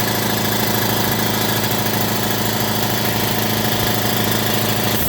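DeVilbiss Pro 4000 60-gallon air compressor, its 5 hp electric motor and pump running steadily under load as the tank fills. It shuts off suddenly at the very end on reaching cut-out pressure, about 122 PSI.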